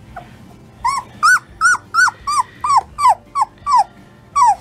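Young poodle puppy crying in a quick series of about ten short, high yelps, each arching up and falling in pitch, roughly three a second, starting about a second in.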